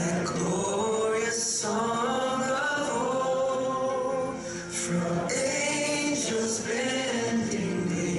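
Voices singing a slow song together, with long held notes.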